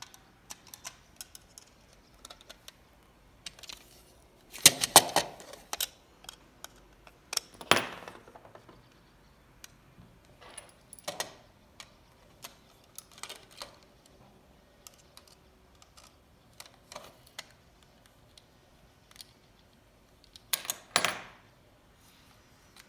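Scattered small clicks, taps and rattles of the hard plastic parts of a Buzz Lightyear action figure's head being handled and unscrewed, with short louder bursts of clattering about five, eight, eleven, thirteen and twenty-one seconds in.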